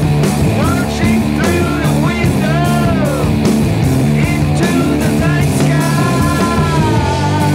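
Rock demo recording: a steady drum beat and electric guitar chords, with a lead line that swoops up and down, then holds one long note that slowly sags in pitch in the second half.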